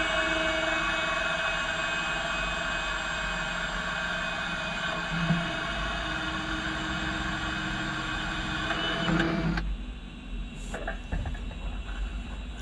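Steady machine hum with several fixed tones that cuts off suddenly about ten seconds in. A few faint clicks and knocks follow.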